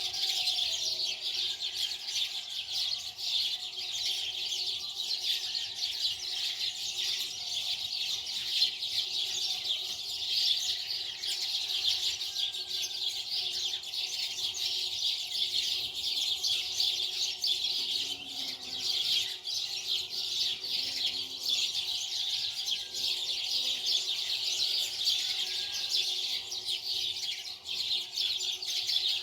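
Dense, continuous chirping of many small birds at a steady level.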